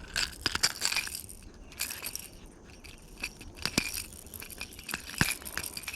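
Pliers and a topwater lure's hooks clicking and clinking in irregular small knocks and scrapes while a hook is worked out of a bass's mouth.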